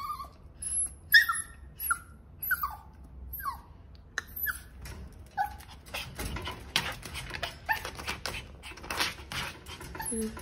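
Small puppy whimpering in short, high cries that fall in pitch, repeated about once a second. Then a few seconds of scratching and rattling as it scrabbles up against the wire pen.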